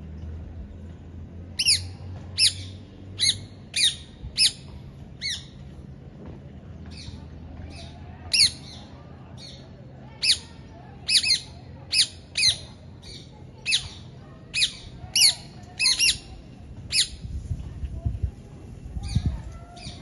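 Rose-ringed parakeet calling: a long series of short, shrill screeches, each dropping in pitch, one or two a second with a brief lull partway through. A low rumble comes in near the end.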